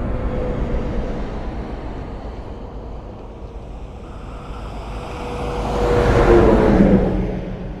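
A vehicle passing by: steady low running noise, then it grows louder about six seconds in and its pitch drops as it goes past.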